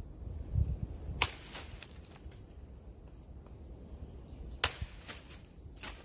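Small hatchet chopping kindling on a wooden stump: sharp cracks of the blade biting into the wood, one about a second in, a second about three and a half seconds later, and a lighter one near the end.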